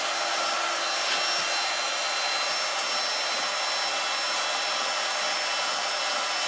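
A steady whirring noise with a few faint, steady high tones running through it and no stroke-by-stroke rhythm.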